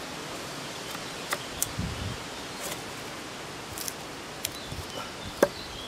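Bushcraft knife carving a notch into a hard ash branch: about half a dozen sharp cuts of the blade biting into the wood, the loudest near the end, over steady outdoor background noise.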